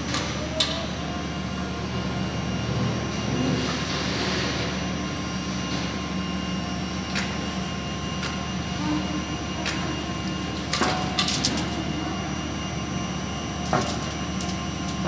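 Steady hum of an overhead crane running as it carries a bundle of steel bars on a beam of lifting magnets. A handful of sharp metallic clicks and clanks cut through it, with a quick cluster about eleven seconds in.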